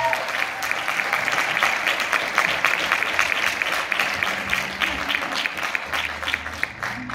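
Audience applauding, dense clapping that slowly thins out.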